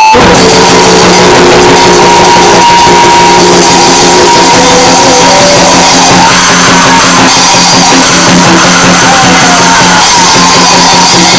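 Raw noisecore recording: a loud, dense wall of distorted noise with steady droning tones and wavering pitches running through it.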